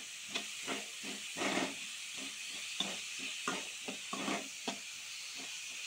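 Chopped onions sizzling in hot coconut oil and ghee in a metal kadhai, frying towards golden, while a metal spoon stirs them and knocks and scrapes against the pan in quick, irregular strokes.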